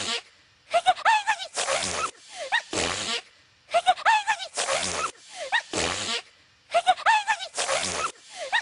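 A female cartoon character's sneeze, looped over and over: a few short, high voiced gasps rising in pitch build into sharp sneezing bursts. The same sneeze repeats about every three seconds, with a brief pause between repeats.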